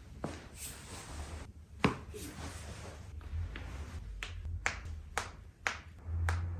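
A series of sharp clicks and cracks: the loudest comes about two seconds in, then they come more often and fairly evenly, about two a second, through the second half.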